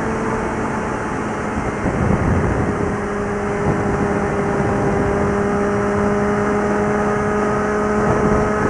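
Suzuki GSX650F inline-four motorcycle engine and exhaust running steadily at highway cruising speed, its pitch holding nearly constant.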